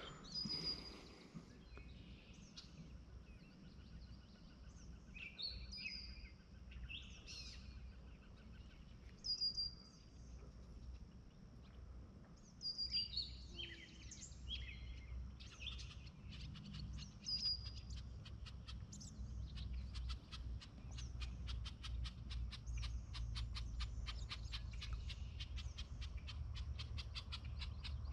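Small birds chirping and calling around a pond, with many short, separate notes, some sliding up or down. From about two-thirds of the way through, a fast run of clicks joins in, over a low steady rumble.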